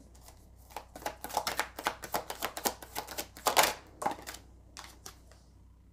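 Tarot cards being shuffled by hand: a quick, dense run of papery card clicks, starting about a second in and stopping about four seconds in.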